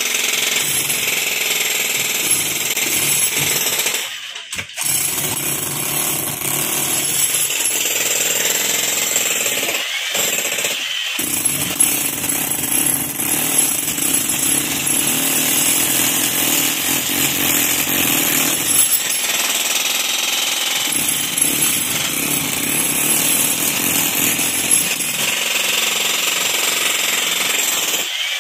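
Corded iNGCO 1300 W electric demolition hammer (PDB130018) chiselling into a concrete column, a steady rapid hammering. It stops briefly about four seconds in and again for moments around ten and eleven seconds.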